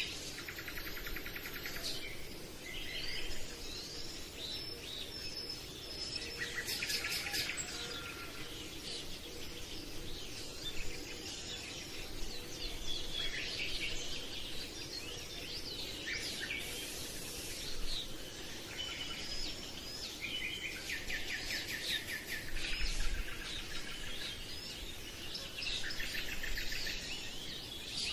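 Birdsong ambience: several birds chirping and calling in quick, overlapping trills and short whistled notes, over a faint steady background hiss.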